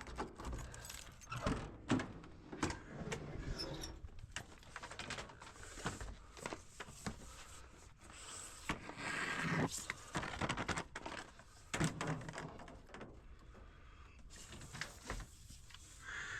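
Pipes being handled and moved aside: a run of scattered clinks, knocks and clatters, with some scraping and rustling in between.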